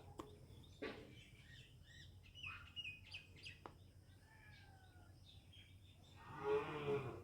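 Small birds chirping faintly, with short chirps and thin whistled glides, and a few light clicks. Near the end comes a louder, low, drawn-out call like a cow lowing.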